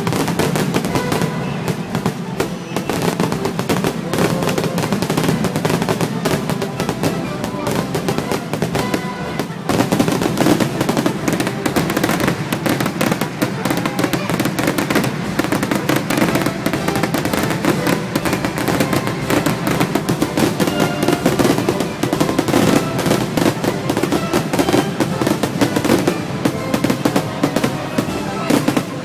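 Fireworks crackling and popping in a dense, continuous stream, over music and the voices of a crowd; it grows louder about ten seconds in.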